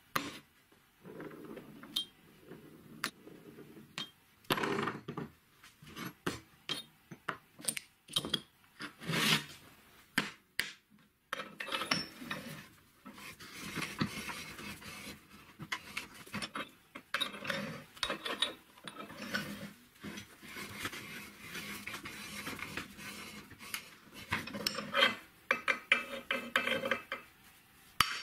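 Handling noise of a steel tube on a wooden workbench and in a steel bench vise: irregular clinks and knocks of metal on metal and on wood, with scraping and rubbing as the tube is slid into place and the vise is closed on it.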